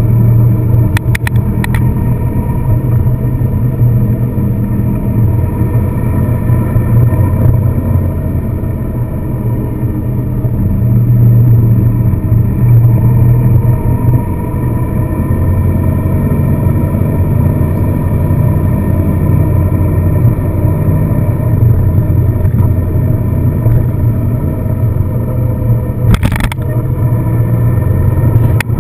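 Car engine and road noise while driving: a steady low drone whose engine note rises and falls, getting louder for a few seconds partway through. There are a few brief clicks near the start and about 26 seconds in.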